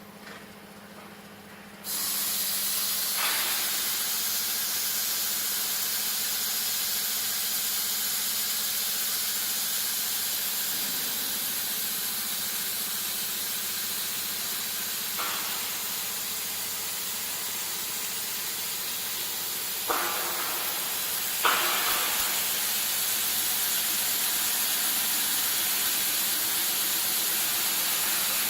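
Industrial steel-beam processing machine running with a steady loud hiss that comes in sharply about two seconds in. A few short clicks or knocks sound over it.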